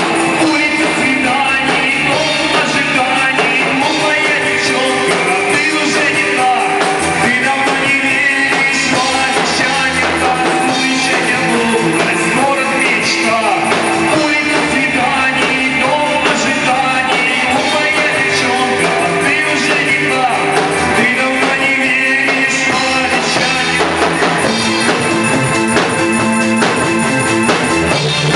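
A song with singing over a rock band backing with drums.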